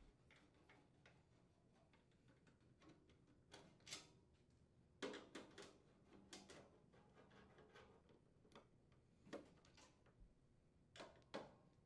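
Faint, scattered metal clicks and ticks of a nut driver unthreading screws from a refrigerator's sheet-metal rear access panel, coming irregularly, a few at a time, after a quiet first few seconds.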